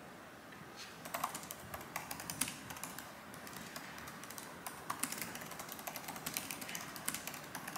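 Typing on a laptop keyboard: a quick, irregular run of light key clicks that starts about a second in.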